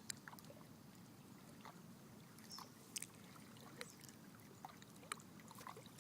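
Near silence: faint lakeshore ambience with soft water lapping and a few small scattered ticks.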